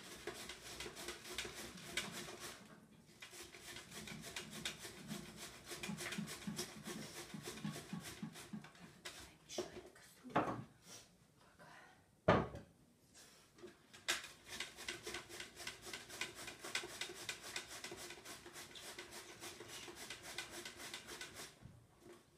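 White cabbage being shredded on a hand-held slicer over a plastic bowl: rapid, even rasping strokes. About halfway through the strokes stop for a few seconds, broken by a couple of knocks, then resume.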